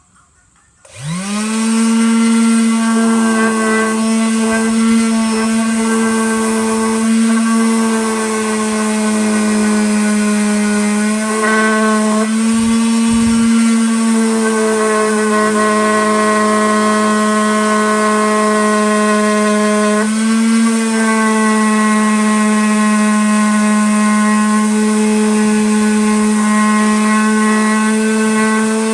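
Handheld electric sanding tool spinning up about a second in, then running steadily with a high whine as it sands an ash wood round. Its pitch dips briefly twice, around the middle.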